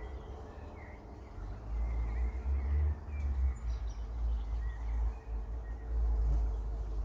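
Small birds chirping faintly now and then, over a strong, uneven low rumble.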